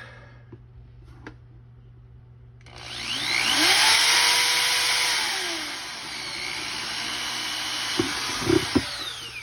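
Power drill boring a hole through a thin plastic container for the air line. It is quiet for the first few seconds; the drill then spins up with a rising whine, drops in pitch partway through as it cuts, and winds down near the end, with a few knocks just before it stops.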